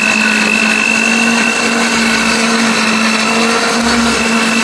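Electric countertop blender running steadily at speed, grinding chili peppers, shallots, garlic, candlenuts, kencur and lime leaves into a spice paste: a constant motor hum with a high whine over it.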